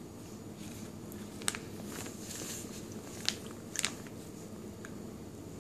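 A few small sharp clicks from spoon-feeding a baby: one about a second and a half in, one past three seconds, and a quick double click near four seconds, over quiet room tone.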